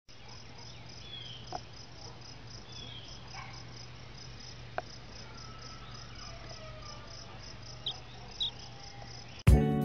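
Insects chirping in an even, high-pitched pulse of about four a second, with a few faint gliding calls over it. Guitar music starts abruptly near the end.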